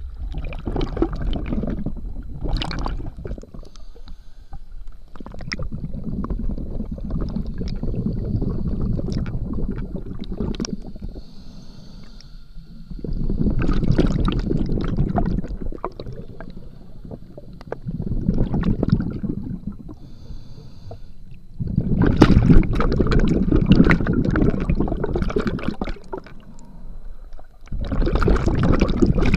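Scuba regulator exhaust heard underwater: the diver's exhaled breath bubbling and rushing past the mask-mounted camera in long bursts every few seconds, with quieter gaps between breaths.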